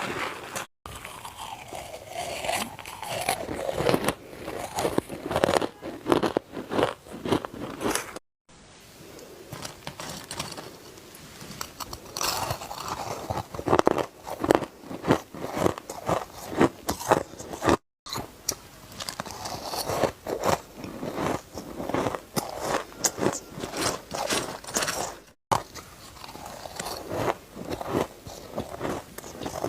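Ice being bitten and chewed close to the microphone: a dense run of irregular crunches, broken by four short gaps of silence.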